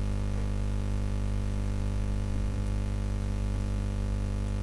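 Steady electrical mains hum with a buzzy stack of overtones, picked up by the recording's audio chain.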